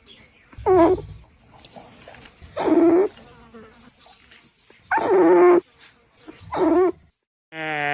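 Dog giving four short, wavering whining cries about two seconds apart.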